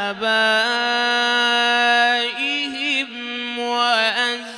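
Solo male voice in melodic Quran recitation (tajwid), chanted into a microphone: one long held note, then, after a short break, a sung phrase with wavering pitch ornaments.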